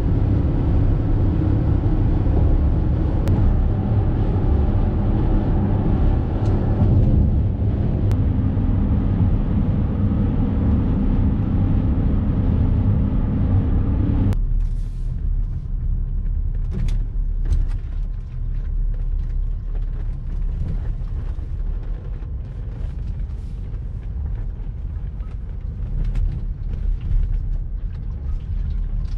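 Cabin noise of a diesel BMW X5 at highway speed: a steady, loud road and engine rumble. About halfway through it cuts to slow driving on a sandy dirt road, a quieter rumble with small crackles from the tyres on the loose surface.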